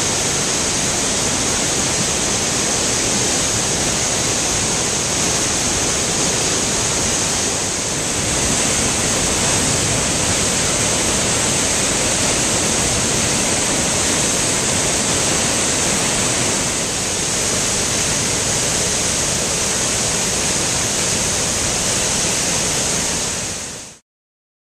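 Great Falls of the Passaic River: a steady, loud rush of water pouring over a rock cliff, cutting off suddenly near the end.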